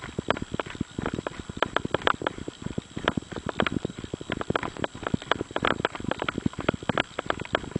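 Running footsteps on a gravel road: a quick, even rhythm of crunching steps.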